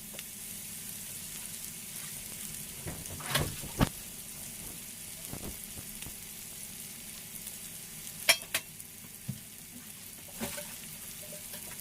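Sliced sausage with onion and garlic frying in oil in a pan, a steady sizzle, as the onion just starts to turn golden. A few sharp knocks of a spoon against the pan during stirring come about three and a half seconds in, around eight seconds in, and once more near ten seconds.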